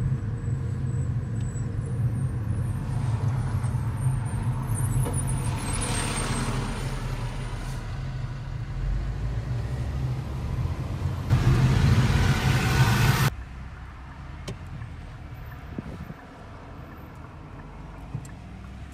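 Road and engine noise inside a moving car's cabin: a steady low hum that swells for a couple of seconds and then drops off suddenly about thirteen seconds in.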